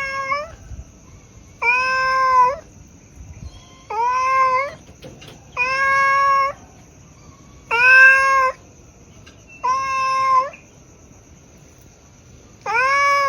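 A cat meowing over and over, one steady meow about every two seconds, each rising at the start and then held at an even pitch.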